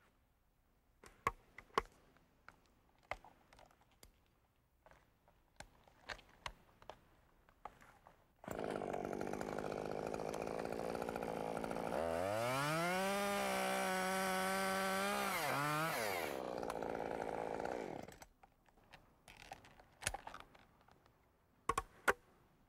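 Chainsaw cutting through the remaining hinge wood to free a rigged limb. It starts suddenly at idle about a third of the way in, revs up to full speed for about three seconds of cutting, drops back, and stops. Scattered light clicks and knocks come before the saw.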